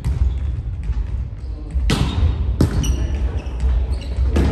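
Volleyball being struck during a rally: a few sharp slaps of hands on the ball, the loudest about two seconds in, each ringing briefly in the gymnasium over a low rumble.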